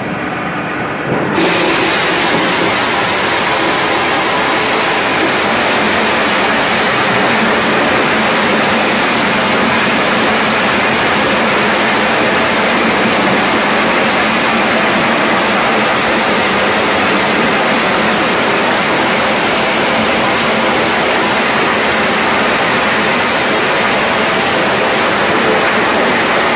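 Corn sheller running while shelling maize: a loud, steady rushing rattle of kernels and cobs going through the machine. It jumps up in loudness about a second in, from a quieter machine hum.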